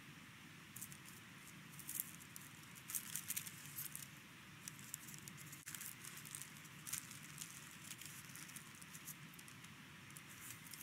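Faint, crisp crinkling and rustling of baking paper in short irregular bursts as a roll of puff pastry is handled and unrolled, over a low steady room hum.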